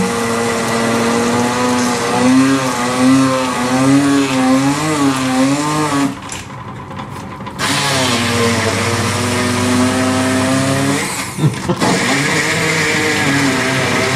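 Electric stick blender running in a bowl of wild-garlic pesto (cashews, sunflower seeds, olive oil). Its motor hum wavers in pitch under the load of the thick mixture. It stops for about a second and a half around six seconds in, then starts again, and falters briefly once more near the end.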